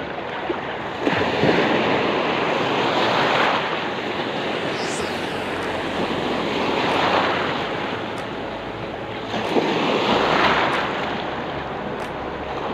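Sea waves washing and breaking in the shallow surf, with wind buffeting the microphone. The wash swells three times: about a second in, around seven seconds, and again around ten seconds.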